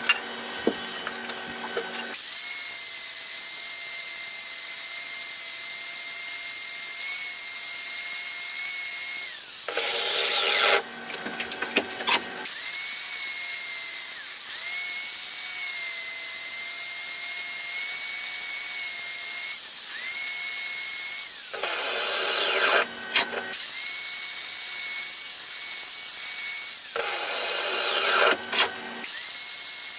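Angle grinder running with a steady high whine as its disc grinds a steel knife blade, breaking off three times for a second or two.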